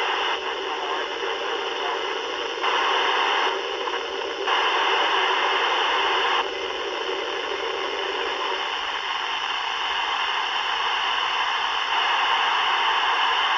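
Ham radio receiver hiss on the ISS downlink near 437.79 MHz: steady static that abruptly gets louder and softer several times, with no voice coming through, which the operator takes for the end of the pass.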